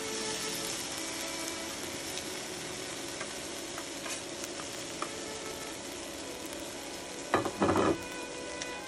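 Marinated Korean barbecue meat sizzling steadily on a hot grill plate, with a few light clicks. A short, louder sound breaks in about seven seconds in.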